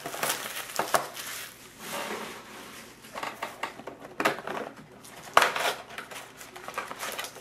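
A cardboard trading-card box and its sealed foil packs being handled on a wooden table: rustling and scraping of cardboard and wrappers, with a few sharp knocks, the loudest about five and a half seconds in.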